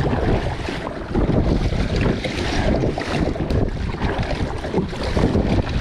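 Heavy wind buffeting the microphone in a steady loud rush, with choppy wind-driven water slapping around a kayak.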